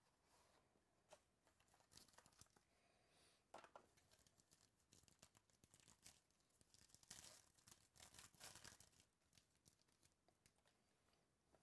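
Faint crinkling and tearing of a gold foil trading-card pack being ripped open by hand, with small rustles and clicks. The rustling is thickest a little past the middle.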